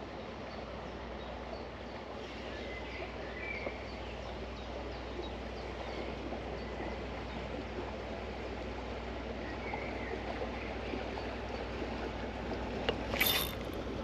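Steady outdoor background noise beside a canal, growing slowly louder, with faint scattered bird chirps. A brief, loud hiss-like burst comes near the end.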